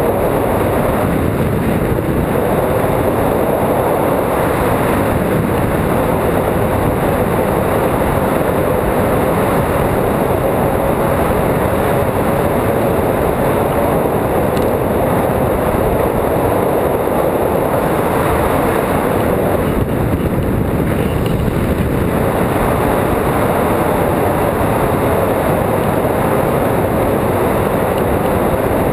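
Steady rush of wind over a hang glider in flight, buffeting the frame-mounted camera's microphone.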